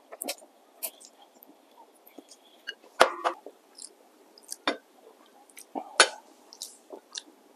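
Close-up eating sounds: noodles slurped and chewed, with scattered short mouth clicks and smacks. There is a louder sip from a bowl about three seconds in. Wooden chopsticks clatter against a ceramic bowl, the sharpest click about six seconds in.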